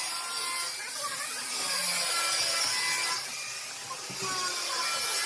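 A cutting tool working with a steady, even rasp, with no separate strokes.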